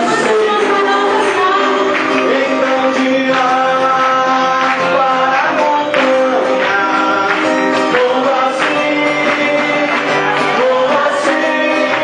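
Live gospel band playing: male and female voices singing together over acoustic guitar and drums, loud and steady throughout.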